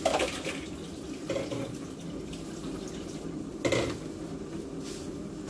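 Kitchen sink tap running steadily, left on so the water warms up, with two brief louder splashes or knocks, one at the start and one after about three and a half seconds.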